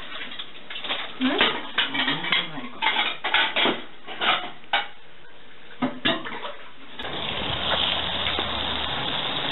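A metal spoon scraping and clinking against a mixing bowl, scooping out gyoza filling in a run of short clicks and scrapes. About seven seconds in, these stop abruptly and give way to a steady hiss.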